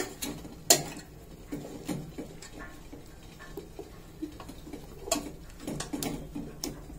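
A wire whisk scraping and clinking against a stainless steel bowl while stirring chocolate and butter as they melt. There is a sharp clink about a second in, then softer scraping, and a run of clinks in the last two seconds.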